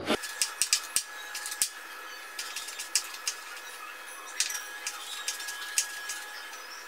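Kitchen knife chopping red chili on a plastic cutting board: irregular sharp taps of the blade striking the board.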